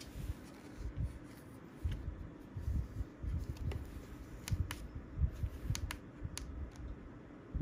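Handling noise from a plastic battery clip fan, switched off, being lifted and turned over by hand: irregular soft bumps with a few sharp plastic clicks.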